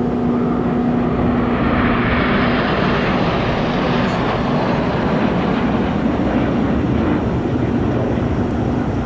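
Jet noise from a close formation of Red Arrows BAE Hawk jets flying past: a broad rushing sound that swells about two seconds in and stays loud.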